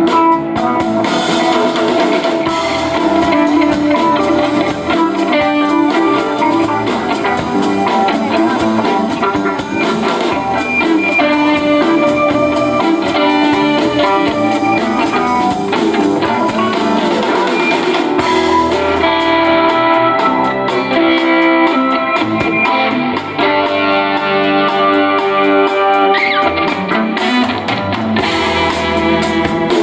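A band playing, electric guitar over a drum kit.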